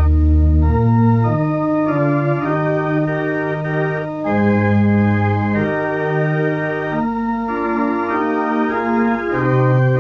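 Background music: slow organ chords, each held for a second or so before moving to the next.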